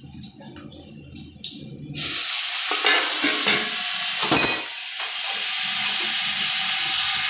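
Water poured into very hot oil and browned onions in a large cooking pot bursts into a loud, steady sizzle about two seconds in. A single sharp knock sounds about midway.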